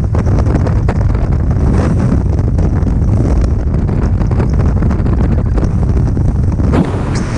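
Freefall wind buffeting a skydiver's camera microphone: a loud, steady, low rumbling rush. Near the end it turns brighter and hissier.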